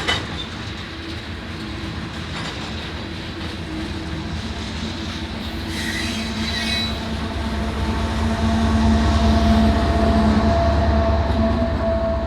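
Freight train of tank cars rolling past, the wheels on the rails making a continuous rumble with a short high wheel squeal about six seconds in. From about eight seconds the rumble grows louder and deeper, with a steady drone under it.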